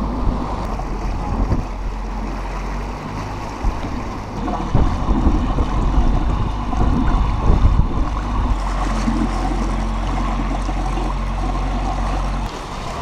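Small motorboat under way: its engine hums steadily under a constant wash of water rushing past the hull and wind buffeting the microphone.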